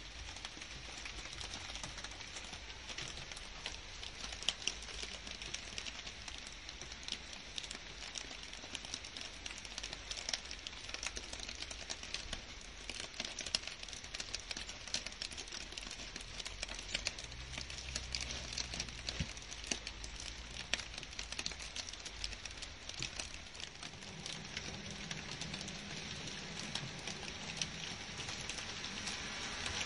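Steady rain falling on garden leaves and grass: a dense, even patter of many small drops ticking on the foliage.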